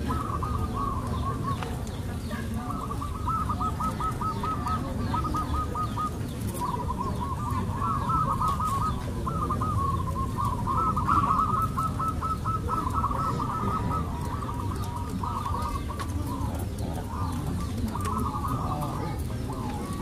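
Zebra doves (perkutut) singing. Their rapid, trilled cooing phrases stay near one pitch and follow one another with short pauses, over a low steady rumble.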